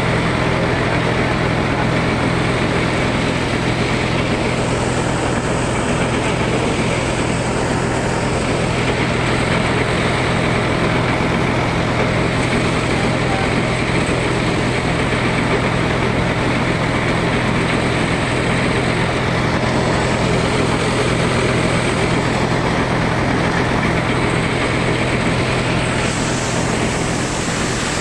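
Paddy thresher running steadily and loudly while bundles of paddy are fed by hand into its drum: a continuous mechanical roar over a steady low hum.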